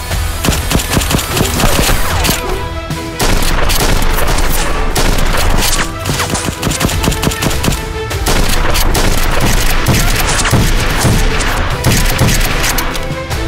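Rapid fire from Nerf dart blasters, a dense run of quick shots over loud background music. The firing gets louder about three seconds in and again about eight seconds in.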